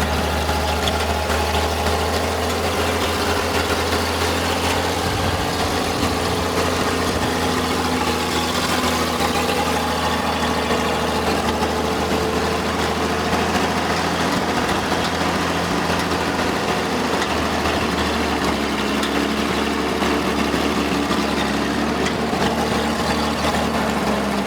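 Mopar engine of an old Ram log skidder idling steadily, its pitch rising slightly about three quarters of the way through.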